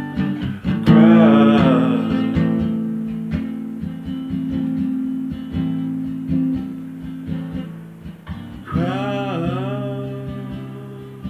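Steel-string acoustic guitar strummed in chords. A short wordless vocal line comes in about a second in and again near the end.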